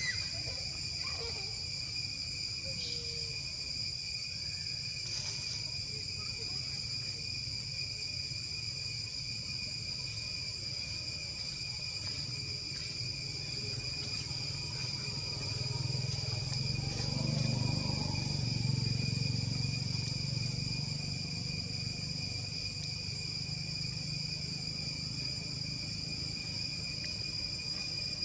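Steady chorus of insects, an unbroken high-pitched drone, over a low rumble that swells and fades around the middle.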